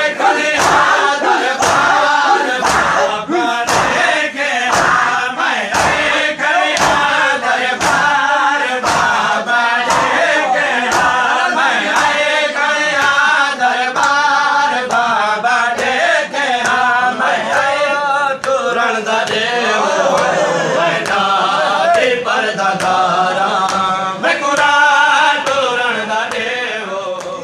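A crowd of men chanting a noha in unison while beating their chests in time (matam), open hands slapping chests in a steady rhythm of sharp claps. The claps grow fainter in the later part, and the chanting fades out near the end.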